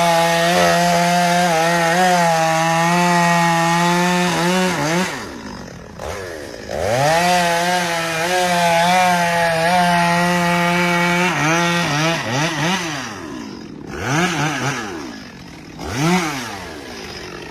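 Two-stroke chainsaw revved to full throttle and held there for about five seconds while cutting wood, dropping back, then doing so again. Near the end it idles down with three short throttle blips.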